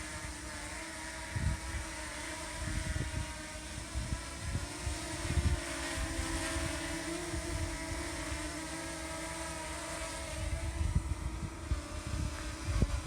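DJI Mini 2 quadcopter hovering, its propellers giving a steady whine whose pitch wavers slightly as the motors hold it against strong wind. Irregular gusts of wind buffet the microphone with low rumbles throughout.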